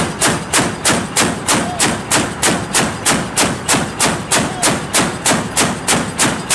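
Mk38 mount's 25 mm M242 Bushmaster chain gun firing steadily on automatic at about three rounds a second, each shot sharp, with a ringing trail.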